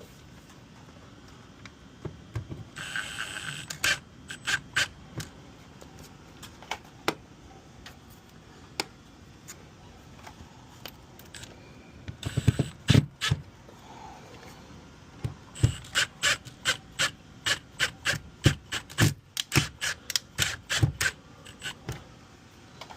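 Hand work on hardware with tools: scattered sharp clicks, knocks and scrapes, two short noisy bursts, and a fast run of clicks about two to three a second in the second half.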